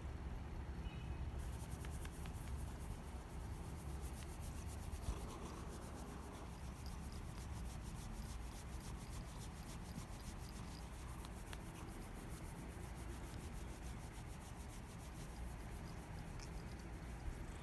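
A hand stroking a ginger tabby cat's fur close to the microphone: a soft, steady rubbing with a fast run of faint scratchy ticks from about a second in until near the end.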